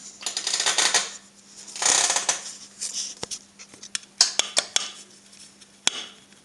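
Metal scraping and clinking as a welding earth clamp is worked into place on a copper rod: two longer scrapes in the first couple of seconds, then a run of sharp clinks.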